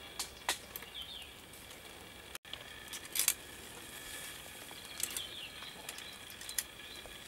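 Scattered sharp clicks and taps of a knife blade knocking against the wooden sticks of a stick-built roasting oven, with a louder cluster of knocks about three seconds in.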